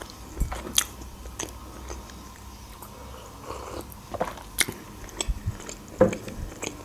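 Close-miked mouth sounds of eating: soft chewing with small wet clicks and smacks. A sip from a mug comes around the middle, and a louder knock near the end.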